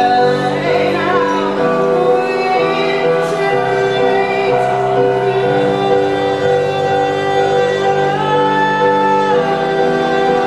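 A woman singing live, accompanying herself on a keyboard that holds sustained chords, the chords changing every second or two.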